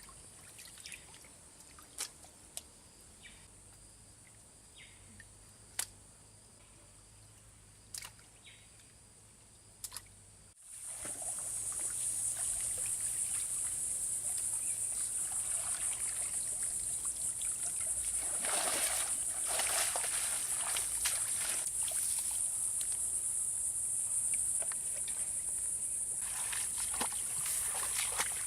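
Outdoor pond ambience: at first faint, with scattered small clicks and drips. About ten seconds in it changes abruptly to a loud, steady, high-pitched drone of insects, with trickling and splashing water coming in bursts.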